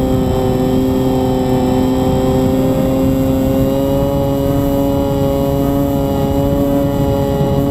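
Multirotor drone's motors and propellers whining steadily at several close pitches that drift slightly up and down, over a rough rush of air noise on the onboard microphone.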